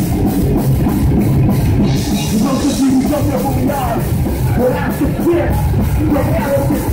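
Heavy metal band playing live: distorted electric guitars, bass and drum kit with repeated cymbal strokes, with a vocalist singing into the microphone from about two and a half seconds in.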